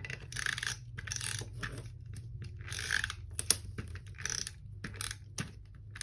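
Paper being cut with scissors and handled: a run of short, crisp snips and rustles with small clicks.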